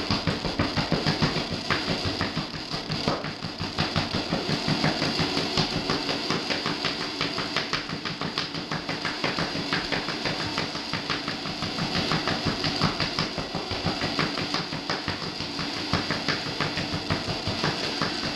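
Throbbing electronic noise music: a dense, harsh wash of sound pulsing rapidly and steadily.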